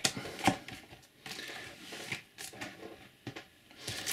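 Trading cards and booster packs being handled on a table: soft rustling with a few light taps.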